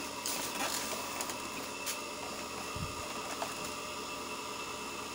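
Epson L360 inkjet printer starting up at power-on with its replacement power supply, its mechanism running quietly with a few light clicks and a soft knock about three seconds in.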